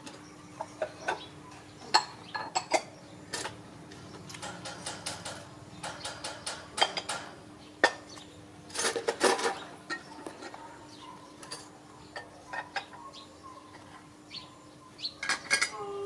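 Puppies suckling at their mother's teats: irregular wet clicks and smacks, some in quick runs of several.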